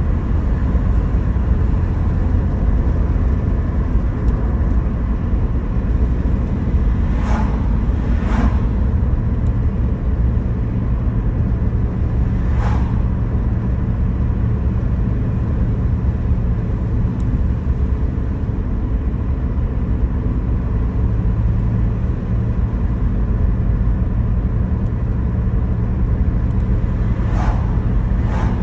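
Steady low rumble of a car's engine and tyres, heard from inside the cabin while driving, with a few brief clicks.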